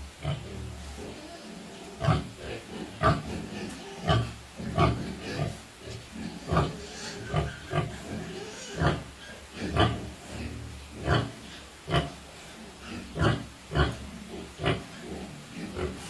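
Pigs grunting: short grunts about once or twice a second, one after another.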